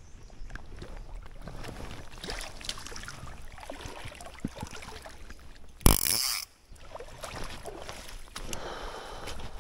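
Creek water sloshing with rustling and small knocks close to the microphone, then one loud, sudden splash-like hit about six seconds in that lasts about half a second.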